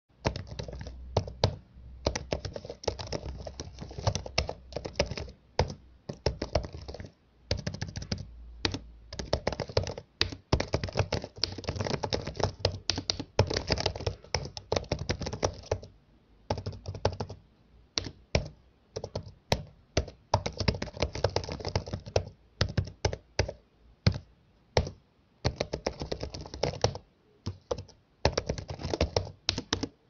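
Computer keyboard clacking under fast typing: quick runs of key clicks in bursts of a few seconds, broken by short pauses, with an occasional harder keystroke standing out.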